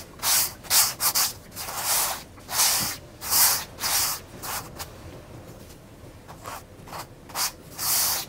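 A paintbrush scrubbing paint onto a stretched canvas: about a dozen short strokes in uneven bursts, with a quieter gap past the middle, as the colour is laid on and blended into a gradient.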